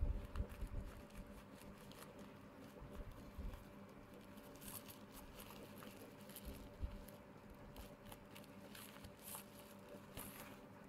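Bubble-wrap mailer being handled and pulled open by hand: faint crinkling and scattered crackles of the plastic, with a few low handling bumps near the start.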